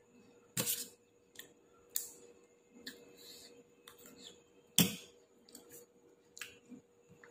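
Dishes and cutlery clinking and tapping during a meal: a handful of separate sharp knocks, the loudest almost five seconds in.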